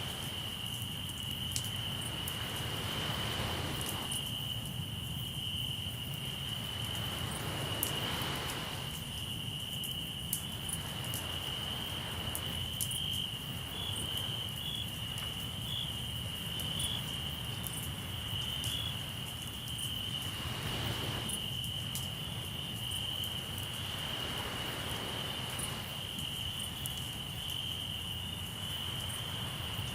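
Crickets trilling steadily at one high pitch, over the light crackle of a campfire and the soft wash of sea waves that swell every few seconds.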